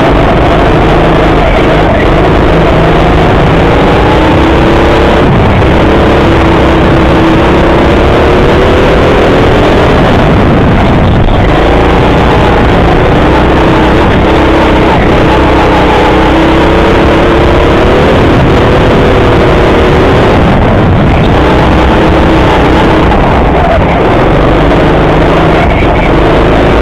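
Rental go-kart's engine heard on board, loud and continuous, its pitch climbing on the straights and dropping several times as the kart lifts off for corners.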